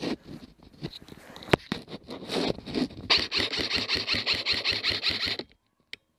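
Footsteps and handling clicks, then an airsoft gun firing a rapid burst: a fast, even rattle lasting a little over two seconds that cuts off suddenly.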